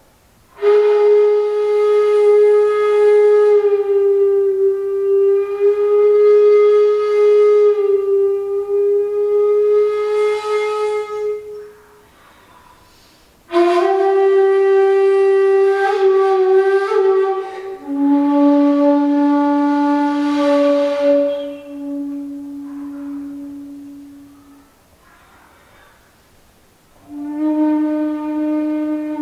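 Solo 1.8 shakuhachi (end-blown bamboo flute) playing slow honkyoku: long held notes, the first lasting about eleven seconds, with pauses for breath between phrases. The later notes sit lower in pitch than the first.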